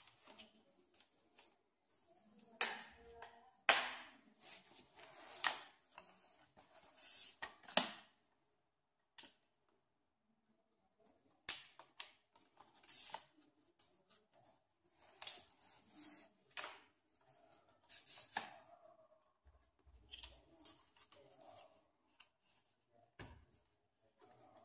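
Compact aluminium travel tripod being handled and its legs set up: irregular sharp clicks, snaps and short rattles from the leg sections, locks and strap, in clusters with a pause of a few seconds in between.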